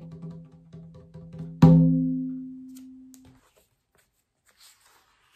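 Percussion sound effect for a motor exploding: a few soft taps, then about one and a half seconds in a single loud drum hit that rings at a low pitch and dies away over a second or two.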